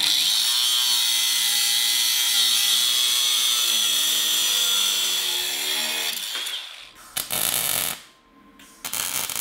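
Angle grinder with a cutoff wheel cutting through a steel go-kart tie rod, a steady high whine whose pitch sags under load before it winds down about six seconds in. Near the end, short bursts of crackling from welding the cut rod back together.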